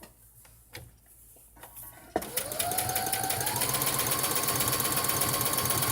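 Brother CS-6000 electronic sewing machine starting to sew about two seconds in: the motor whine rises in pitch over about a second and a half, then runs steadily at a fast, even stitching rhythm.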